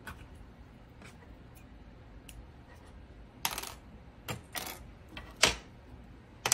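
Light clicks and short clatters of small hard sewing notions, such as pins and clips, being handled and set down on a sewing table. There are a few faint ticks early on and louder clacks from about three and a half seconds in, the sharpest about five and a half seconds in.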